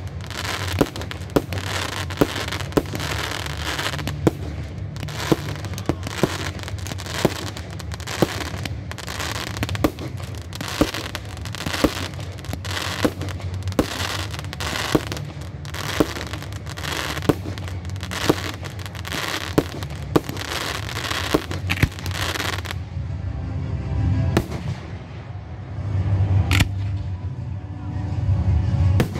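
Fireworks display: aerial shells bursting in an even series of sharp bangs, about two a second, over crackling. About three-quarters of the way through the series stops, leaving a low rumble and two single sharp bangs.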